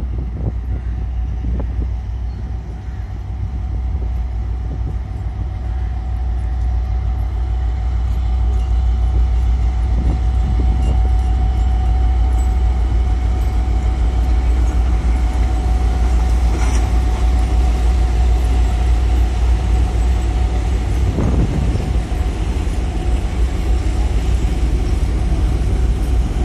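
Coupled 2M62-series twin-section diesel locomotives running light past, their two-stroke V12 diesel engines giving a heavy low rumble that grows louder over the first several seconds as they approach, then holds steady. A thin steady whine sits above the rumble through the middle.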